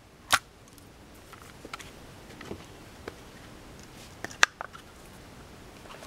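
Metal handling clicks as a 12-gauge barrel is fitted onto a break-action shotgun's receiver: a sharp click just after the start, a few light ticks, and a louder sharp click about four and a half seconds in.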